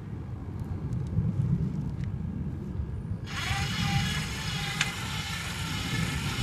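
Electric motor of an automated fishing-rod casting rig starting about three seconds in and running with a steady high whine like a drill, as the machine loads up for its cast. A low rumble sits underneath.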